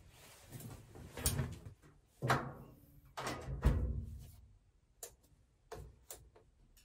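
Several knocks and clunks of things being handled and shut, the loudest a little under four seconds in. Then a few light clicks as a knob on a white appliance is turned.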